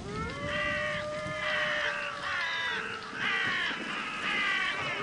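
Crows cawing over and over in quick succession, over a steady held tone that rises at the start and steps lower about halfway through.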